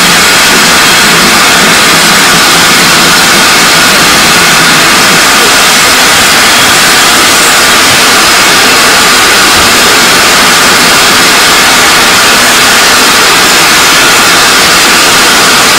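Loud, steady hiss of steam escaping as a steam locomotive draws slowly alongside between coaches, with no break or rhythm.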